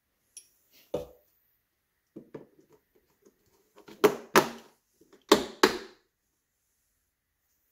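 Plastic clip-lock container lid being closed: a light knock as the lid goes on, then four sharp snaps in two quick pairs as its latch flaps are pressed down.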